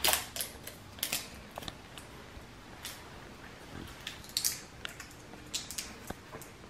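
Plastic crackling and clicking in short, irregular bursts as a marinade bottle is opened by hand: the seal around the cap picked and torn off and the cap twisted. The loudest crackle comes right at the start, another about four seconds in.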